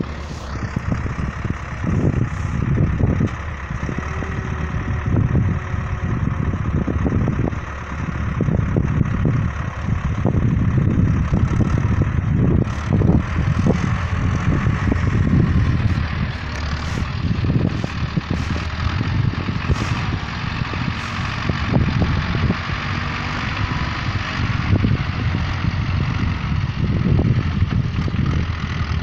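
Ostrówek backhoe loader's diesel engine running as the machine handles timber beams, its loudness rising and falling with the work.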